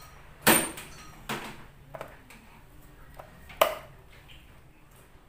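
Metal wire beaters of a Scarlett hand mixer clinking against each other and clicking on the mixer's plastic body as they are fitted: three sharp clicks, the first about half a second in and loudest with a brief metallic ring, plus a few faint ticks.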